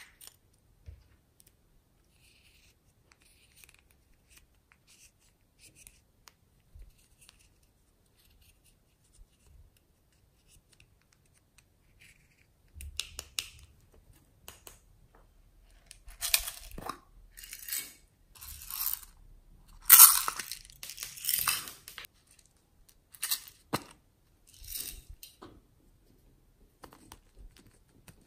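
Small plastic clicks and handling noises, then a run of short, scratchy, rustling bursts about halfway through, loudest around two-thirds of the way in, as hands crumble eyeshadow and sprinkle glitter onto a tray of slime.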